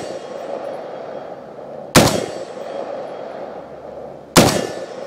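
Two single rifle shots from a PSA Harrington & Richardson retro M16A1 firing 55-grain 5.56 ammunition, about two and a half seconds apart in slow aimed fire, each with a short echoing tail.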